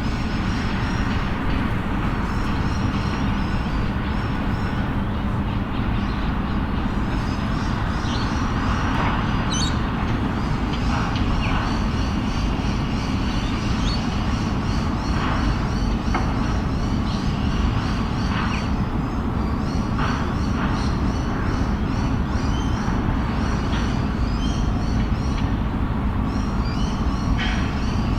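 City ambience: a steady low rumble of vehicles, with rapid high chirping through much of it and scattered short high calls.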